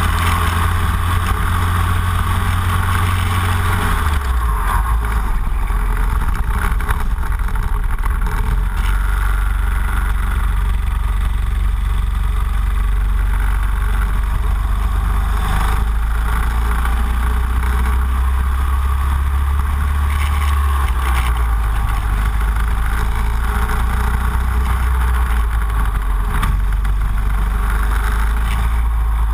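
Racing kart engine running at speed through a lap, recorded on board. Its low note falls about four seconds in and shifts up and down again around seventeen to twenty-one seconds as the kart's speed changes.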